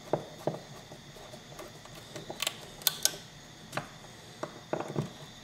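Screwdriver tightening the small screws on a Yamaha DT80 reed valve block: scattered clicks and knocks of metal on metal, with three sharp ticks close together about halfway through and a few more near the end.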